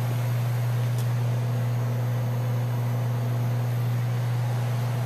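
Commercial refrigerator running: a steady low electrical hum, with an even hiss like a fan, from its compressor and condenser fan. A faint click comes about a second in.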